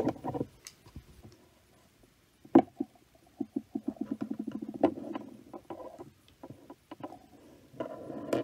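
Hands handling blood-draw supplies: scattered clicks, a sharp knock about two and a half seconds in, then a fast run of ticks lasting about two seconds.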